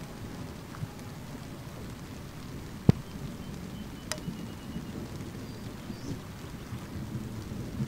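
Low, continuous rumble of distant thunder from a severe thunderstorm line, with a single sharp click about three seconds in and a fainter one about a second later.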